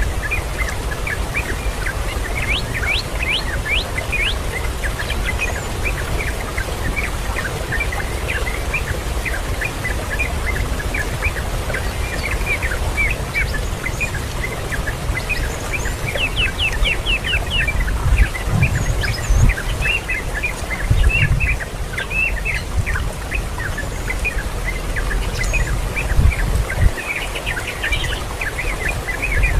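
Small birds chirping: many short, high chirps, some in quick runs, over a steady low rumble with a few louder low thumps in the second half.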